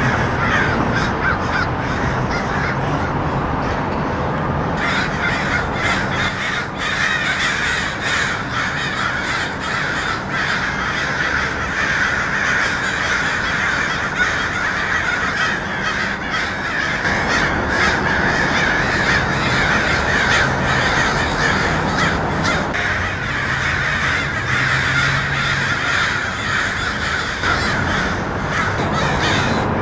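A flock of crows cawing continuously, many calls overlapping into a dense din that never lets up: the agitated calling of a prolonged crow fight among birds circling overhead.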